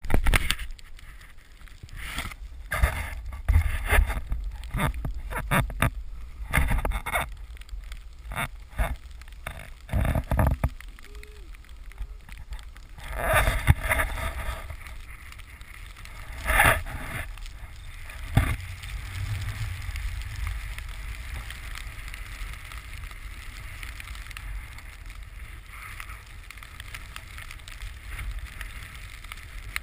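Snowboard sliding through powder snow, heard from a camera worn by the rider: a steady hiss of the board in the snow with wind rushing over the microphone. Frequent knocks and bumps against the camera come mostly in the first ten seconds, and a few more come between about 13 and 18 seconds.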